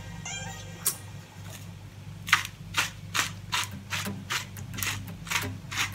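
Hand-held salt grinder being twisted, grinding salt in a regular run of sharp crunching clicks, about two to three a second, starting about two seconds in. A single click comes about a second in.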